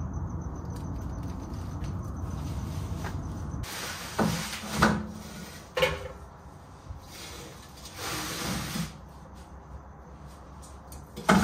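Old steel exhaust pipe being twisted and worked out from under the car: low rubbing and scraping of metal, then louder scrapes with a few knocks a few seconds in.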